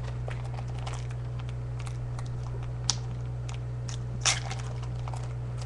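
Trading cards and foil booster-pack wrappers being handled: scattered faint crinkles and ticks, with a louder crinkle about four seconds in, over a steady low electrical hum.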